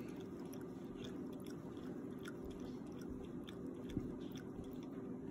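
Ragdoll cat lapping liquid from a mug: small wet clicks of the tongue, about three or four a second, over a steady low hum, with one louder knock about four seconds in.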